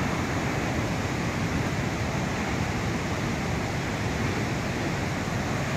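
Steady rushing roar of a river in flood: a swollen, muddy torrent running far above its danger mark and carrying debris.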